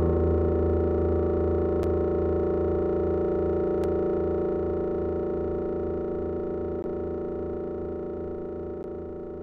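One long held chord of live electronic music, slowly fading, with a slow wavering pulse in its lowest note.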